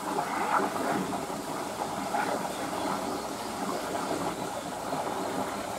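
Steady rush of running water in a beaver pool, with faint voices in the background.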